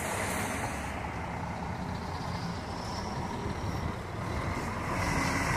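Intercity coach's diesel engine running close by, steady, growing louder about four and a half seconds in.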